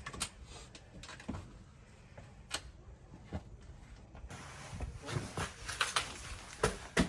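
Hikers' boots stepping and scuffing on a rocky trail in irregular footfalls, sparse at first and closer together and louder from about five seconds in.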